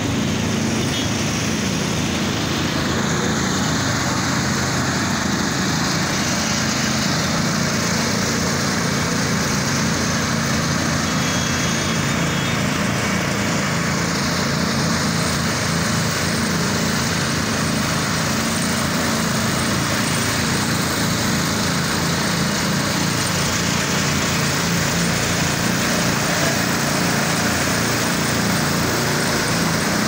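Asphalt paver's diesel engine running steadily at an even speed, a constant drone that doesn't rise or fall.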